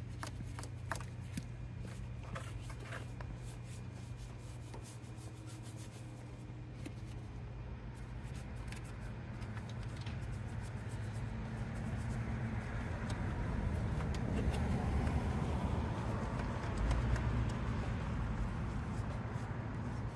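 Scrubbing of dirty, foam-soaked engine-bay parts by hand, a run of short scratchy strokes and clicks over a steady low hum. In the second half a broad low rumble swells up and peaks a few seconds before the end.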